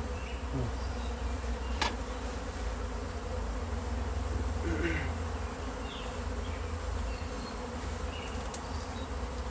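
Honey bees buzzing around an opened hive: a steady hum with single bees passing close now and then. There is a brief click about two seconds in.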